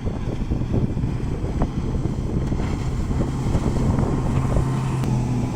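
A Honda engine running on test, with a rapid, even firing beat; a steadier hum settles in about three seconds in. Wind buffets the microphone.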